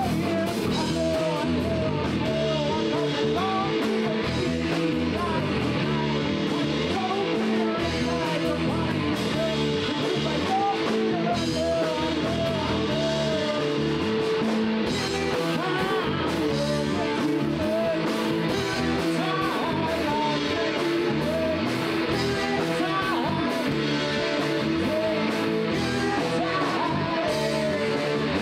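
Live rock band playing: a man singing lead vocals over electric guitars and drums, at a steady level.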